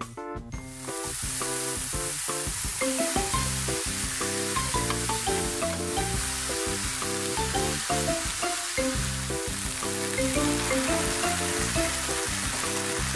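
Shiitake mushrooms and garlic chives sizzling in hot oil in a frying pan, stirred with chopsticks; the sizzle starts about a second in as the mushrooms hit the pan and then holds steady. Background music plays throughout.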